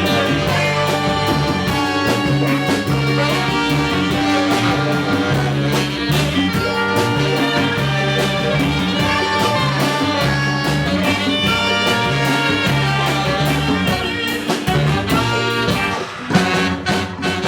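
Live Ethiopian jazz band playing, with horn lines over a repeating bass figure. The tune closes with a few sharp accented hits near the end.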